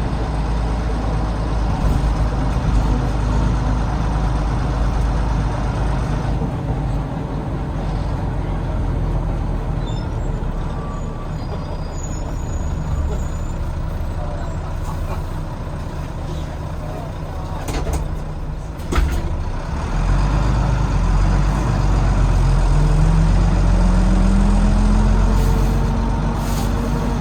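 Volvo D9B diesel engine of a Volvo B9TL double-decker bus, heard from inside. It runs quietly, then a couple of sharp clicks come just before it pulls away with a loud low rumble. As the bus accelerates a whine rises steadily in pitch: the odd noise it makes each time it accelerates, which the owner could not place and guesses may be the gearbox, the cooling fan or the axles.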